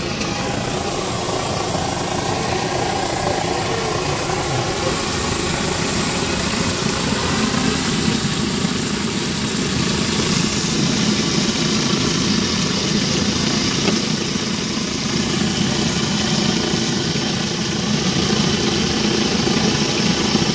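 Masala-coated fish deep-frying in coconut oil in a wok, the oil sizzling steadily over a low, even rumble. The sizzle grows louder about halfway through.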